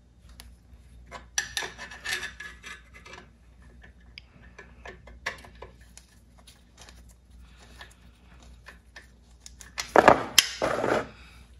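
Small metallic clicks and rattles of a spanner and parts working at the sump drain of a 1955 AJS Model 18S 500cc single. About ten seconds in, a brief louder burst of handling noise at the plastic drain pan as the engine oil starts running into it.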